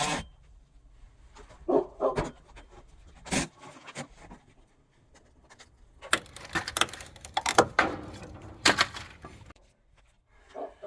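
A dog gives a few short barks, with a stretch of dense scraping and clattering from the work on the camper's wall in the middle.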